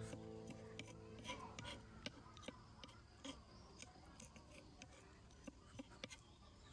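Faint, irregular clicks and taps of a kitchen knife against a wooden chopping block as small fish are cut and cleaned.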